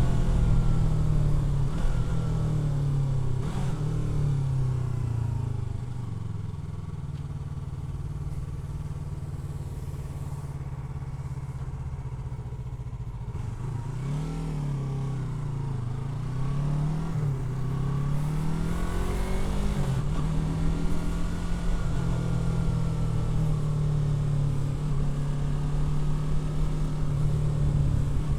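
Yamaha R3's parallel-twin engine under way: the engine note drops as the bike slows, runs low and steady, rises and falls a few times in quick revs, then holds steadier and louder near the end.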